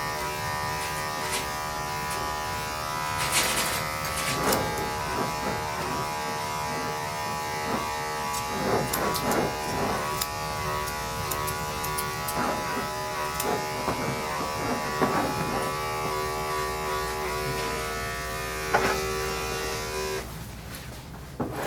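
Electric dog grooming clippers running with a steady hum, with scattered light clicks, then switched off near the end.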